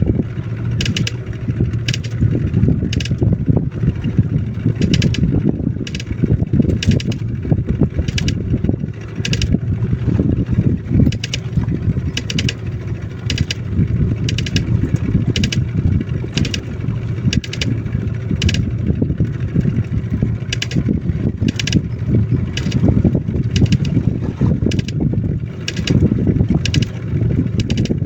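A boat's outboard motor runs steadily at trolling speed, a continuous low rumble, with short sharp clicks or slaps recurring about once or twice a second over it.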